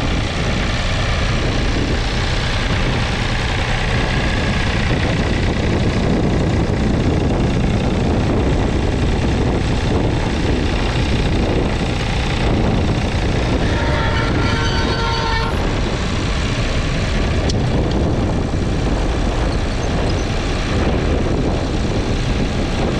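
David Brown 780 tractor's 2.7-litre three-cylinder diesel engine running steadily under load while pulling a two-furrow plough through the soil. A brief pitched tone sounds about fourteen seconds in.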